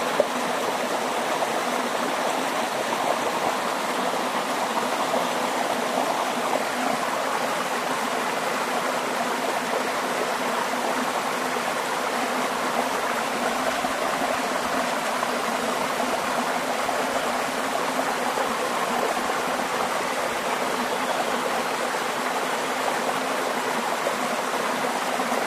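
Waterfall, water rushing and splashing steadily, with no change in level.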